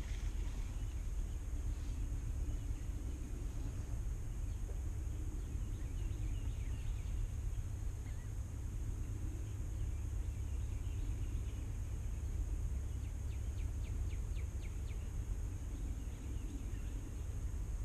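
Outdoor ambience: a steady low rumble like wind on the microphone under a steady high hiss, with a few faint bird calls, the clearest a quick chattering run a little past the middle.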